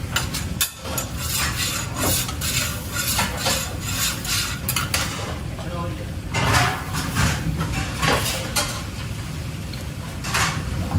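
A metal utensil stirring and scraping in a pot or pan, with repeated clinks of metal on cookware over a steady low rumble.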